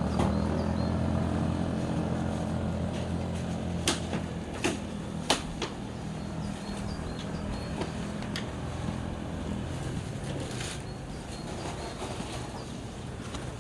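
A motor vehicle's engine hum, fading away over the first several seconds, with a few sharp clicks about four to six seconds in and another near the end.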